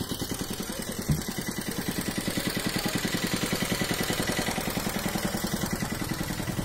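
Small engine running steadily with an even chugging pulse, about ten beats a second, with a single knock about a second in.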